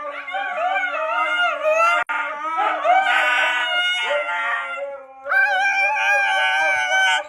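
A dog howling in long, wavering howls whose pitch bends up and down, with a short pause about five seconds in.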